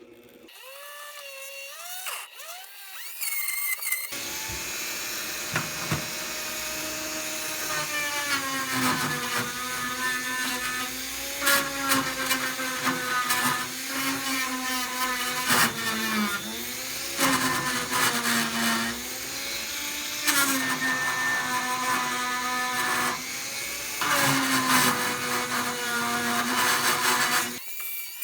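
Handheld rotary tool polishing metal toolbox hardware. It spins up in the first few seconds, then runs with a high whine whose pitch sags each time it is pressed onto the part and rises again as the pressure eases.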